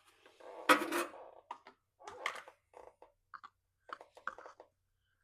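Hands handling washing-machine drain-pump parts: a louder scraping clatter about a second in, then a string of short clicks and knocks.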